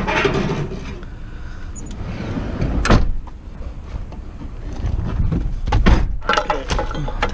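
Knocks and clatter of scrap being handled and loaded, over a low rumble: one sharp knock about three seconds in and a cluster of knocks near the end.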